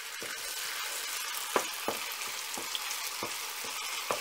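Tomato paste and garlic frying in oil in a pan, a steady sizzle, as a wooden spoon stirs it, with a handful of sharp clicks. The paste is being roasted in the oil over medium heat until it is fully cooked down.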